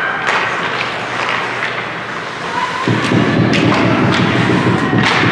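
Ice hockey arena noise: scattered sharp knocks and thumps, with a louder, steady low noise setting in about three seconds in.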